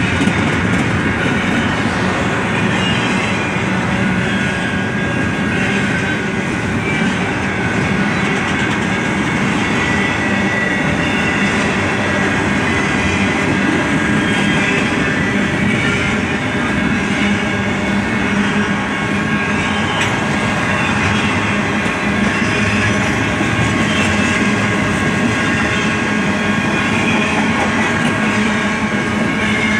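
Empty BNSF intermodal cars rolling past at a level crossing, a steady loud noise of steel wheels on the rails as the train picks up speed after a stop.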